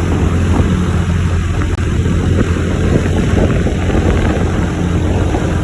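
Bus engine running with a steady low hum, loud and close.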